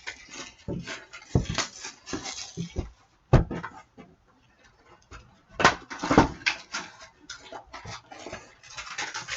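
Shrink-wrap crinkling and cardboard rustling as a sealed box of hockey trading cards is opened and its packs taken out, with a sharp knock about three seconds in.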